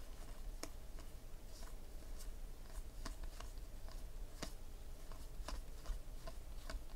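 Panini Contenders football trading cards being flicked through and slid against one another by hand, making faint, irregular light clicks and rustles.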